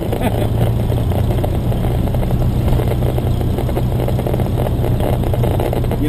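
Cessna 175's piston engine and propeller running steadily, heard from inside the cockpit.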